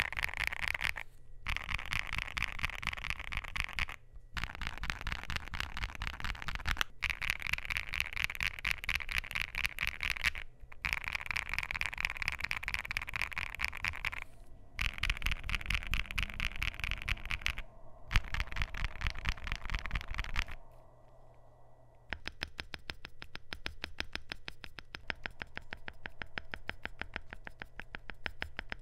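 Continuous typing on a gasket-mounted Luminkey LK65 mechanical keyboard with lubed and filmed Gateron Sylva switches and a polycarbonate plate: rapid keystroke clacks in runs of a few seconds with short pauses between. After a brief lull about twenty seconds in, the keystrokes turn lighter and thinner.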